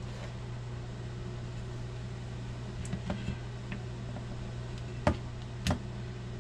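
A few sharp knocks of a chef's knife on a plastic cutting board while porcini mushrooms are cut, the two loudest about five seconds in, over a steady low hum.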